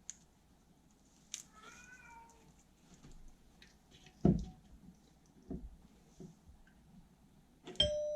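A cat meows once, with a bending pitch, about a second and a half in, and two dull knocks follow. Near the end the old doorbell is struck and begins ringing a steady bell tone as it is connected to the battery.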